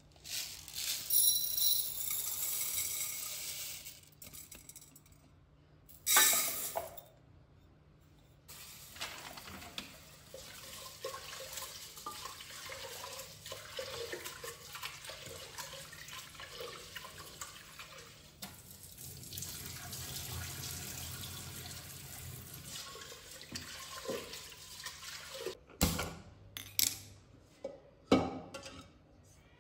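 Tap water running into an aluminium pressure cooker at a kitchen sink, with a long steady run of water through the middle. Near the end come a few sharp clicks and knocks.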